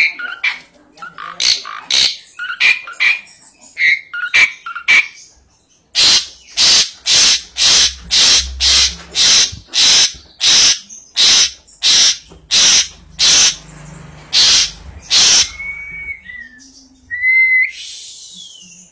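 Asian pied starling (jalak suren) calling. It starts with varied chattering notes, then gives a long run of loud harsh notes at about one and a half a second for nearly ten seconds, and ends with a couple of short whistles.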